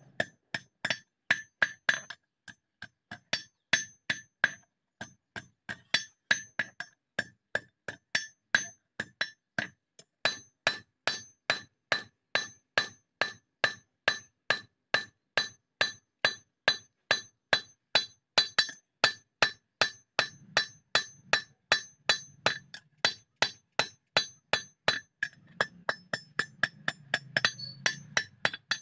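Hand hammer striking a red-hot steel sickle blade on a railway-rail anvil as it is forged. The blows come in a steady run of sharp, ringing metal strikes, about three a second, with brief pauses between runs.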